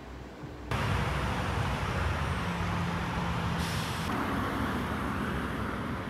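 Road traffic noise, a steady rumble and hiss of passing vehicles, cutting in suddenly under a second in after quiet room tone.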